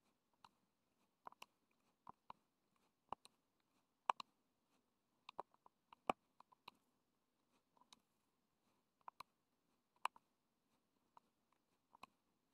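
Near silence: faint room hiss with scattered short, sharp clicks and ticks at irregular intervals, a few of them distinctly louder.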